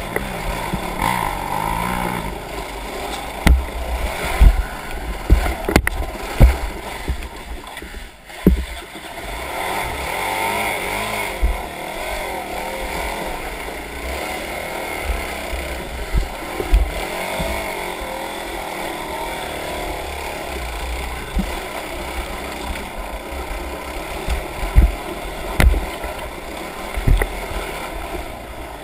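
Off-road vehicle engine running steadily on a creek trail, with repeated short low thumps.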